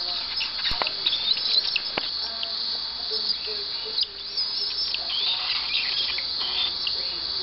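A baby bird's continuous, high-pitched begging chirps as it is spoon-fed, with a few sharp clicks about one and two seconds in.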